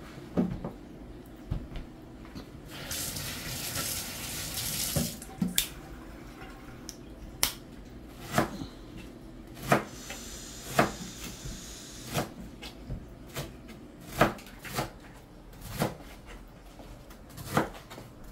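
Kitchen tap running for about two seconds, a few seconds in, followed by a series of irregularly spaced clinks and knocks of things being handled at the sink.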